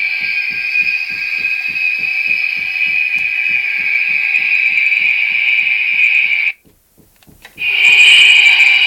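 Recorded Avro Vulcan jet howl, edited with distortion and compression, played from a sound chip through a small speaker inside a scale model: a loud, steady, high-pitched howl with a low pulsing about four times a second. It cuts off about six and a half seconds in and, after a second of near silence, starts again loudly.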